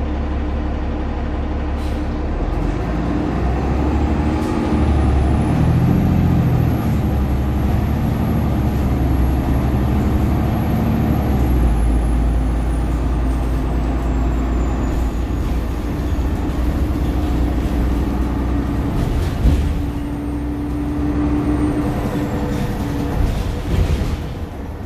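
Cummins L9 diesel engine of a 2021 Nova LFS transit bus, heard inside the passenger cabin while the bus is under way. Its steady low rumble rises and falls through the first half, with a thin high whine that drifts down in pitch.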